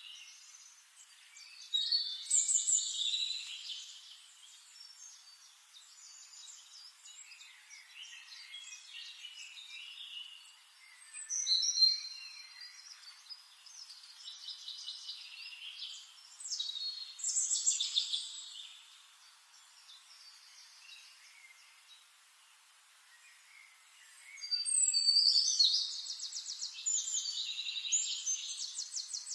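Forest songbirds singing in short phrases of chirps and trills with gaps between them. A long rapid trill starts about three-quarters of the way through and is the loudest part.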